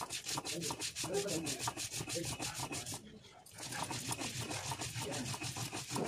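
Stone grinding on stone: a cylindrical grinding stone rolled and rubbed back and forth over a flat stone slab (sil-batta) in quick, even strokes. The strokes stop briefly about halfway through, then start again.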